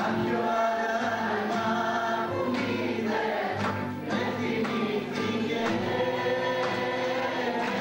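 Live Greek music: singing together with a bowl-backed lute and a keyboard, with sharp plucked or struck notes scattered through.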